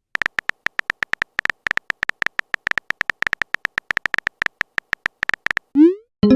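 A rapid, irregular string of short electronic beeps, all at one high pitch and about seven a second, for over five seconds. A quick rising glide follows near the end.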